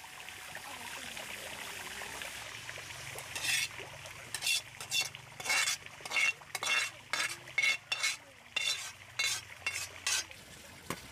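A utensil scraping and stirring in a cooking pot, in a quick run of strokes about two a second that starts a few seconds in, over a low steady hiss.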